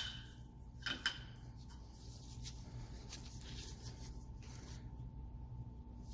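Two long steel bolts picked up and handled in a gloved hand: two light clicks about a second in, then faint rubbing and ticking over a low steady hum.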